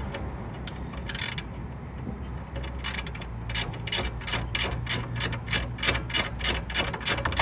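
Hand ratchet wrench clicking as it runs down an alternator mounting bolt: a few scattered clicks at first, then a steady run of about four clicks a second from about three seconds in.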